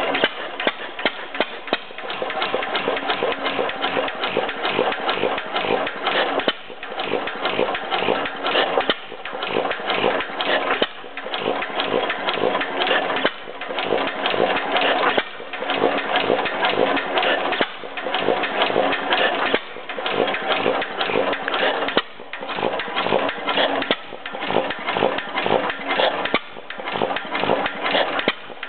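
Gardner No. 1 stationary engine with low-tension magneto ignition running steadily, a fast even clatter that dips briefly about every two seconds.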